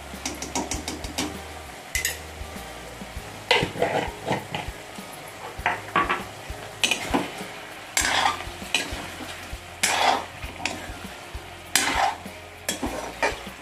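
Steel ladle scraping and knocking against a stainless steel kadhai in irregular strokes as chicken pieces are stirred, over a steady sizzle of the chicken frying in oil. The strokes get louder from a few seconds in.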